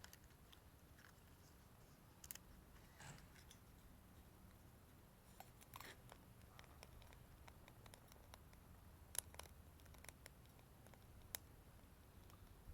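Near silence broken by a few faint, sharp crackles and clicks at irregular intervals, the loudest about nine and eleven seconds in: small pieces of wood burning in a compact wood-gas camping stove.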